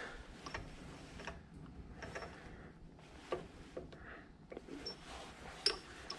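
A few light metal clicks and ticks, spaced about a second apart, as a bench lathe's tool post and carriage handwheel are adjusted by hand.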